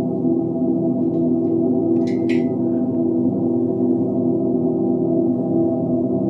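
Background music: a sustained, droning gong-like tone with layered low notes. Two short sharp clicks sound about two seconds in.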